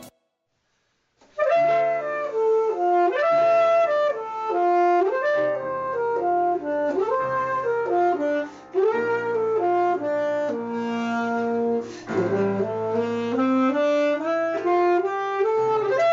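Instrumental music: a saxophone-like lead plays a moving melody over lower held bass notes. It starts after about a second of silence, with short breaks between phrases.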